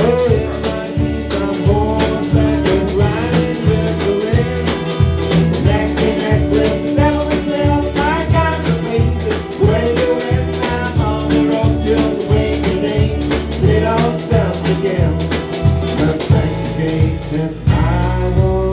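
Live blues band playing an instrumental break: a lead guitar line with bent notes over bass and a steady drum beat.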